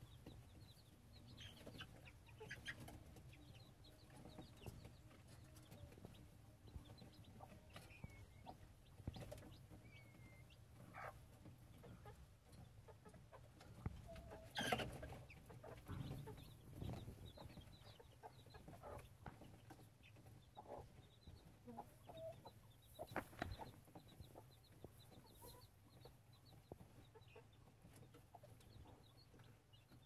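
Black Aseel chicken clucking faintly now and then, with a louder, sharper sound about halfway through.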